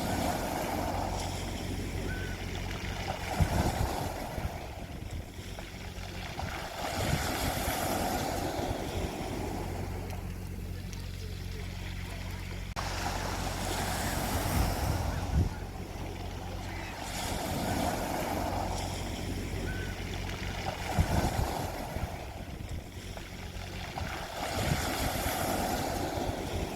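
Sea waves breaking and washing up a beach, the surf swelling and fading every few seconds over a steady low rumble.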